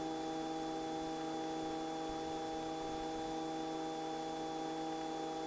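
Robinson R44 helicopter climbing after takeoff, heard through the headset intercom audio as a steady hum of several unchanging tones over an even hiss.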